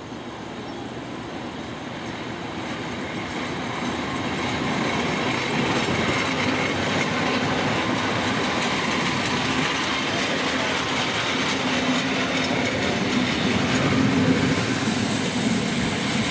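Electric commuter train moving along the platform and passing close by, its running noise growing louder over the first few seconds and then holding steady, with wheels clacking over the rails and some wheel squeal.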